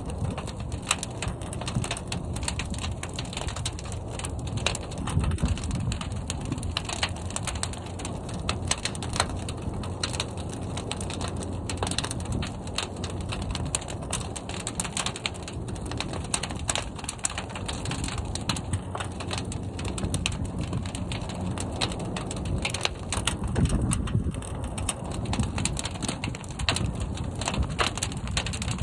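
Fire burning inside a large kiln: a steady low rumble under dense, irregular crackling.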